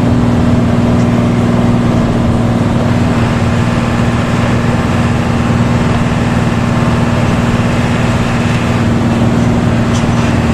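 Intercity bus engine with a 'ngorok' (snoring) exhaust, running steadily: an unbroken droning hum over road noise.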